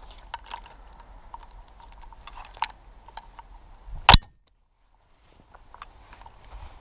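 Scattered light clicks and rattles of handling, with one sharp, loud crack about four seconds in, followed by about a second of dead silence.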